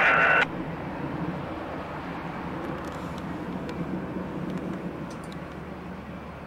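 A scanner radio transmission ends with a steady two-note tone that cuts off abruptly about half a second in. After it comes a low steady rumble of vehicles and a distant train that slowly fades, with a few faint clicks.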